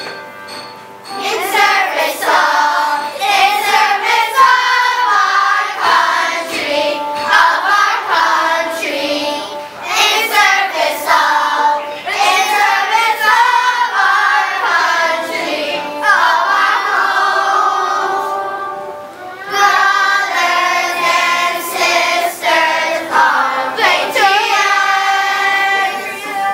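A group of children singing a song together as a choir. The singing starts about a second in and breaks off briefly about two-thirds of the way through before going on.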